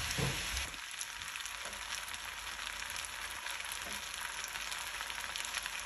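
Chowmein noodles with sausage and vegetables frying in a non-stick pan: a steady sizzle with fine crackles, and a few soft knocks in the first second.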